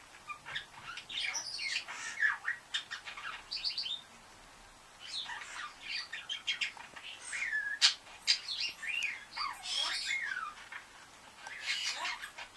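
Male budgerigar warbling: a fast, varied run of chirps, clicks, squawks and whistled up-and-down glides, breaking off briefly about four seconds in and again near the end.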